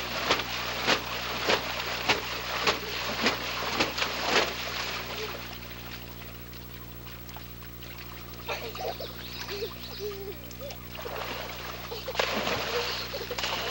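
Water in an inflatable backyard pool splashed hard by hands slapping the surface, about two splashes a second for the first four seconds, then settling into gentle lapping. In the quieter middle a toddler gives a few short hooting calls, and the splashing picks up again near the end, over a steady low hum.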